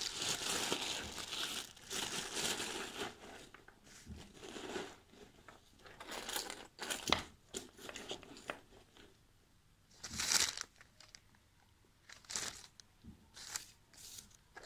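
Plastic bag crinkling and rustling as it is handled: steady for the first few seconds, then in scattered short rustles and clicks, with a louder rustle about ten seconds in.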